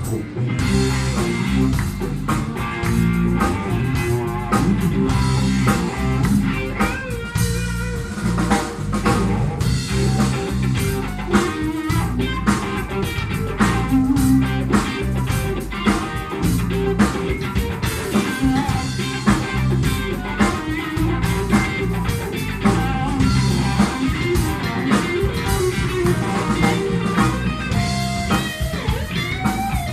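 Live band playing without vocals: an electric guitar picking a melodic line over electric bass and a drum kit.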